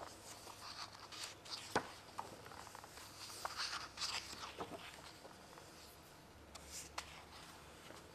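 Pages of a large hardcover art book being turned and smoothed by hand: faint paper rustling and brushing in short bursts, with a few soft taps, the busiest stretch about halfway through.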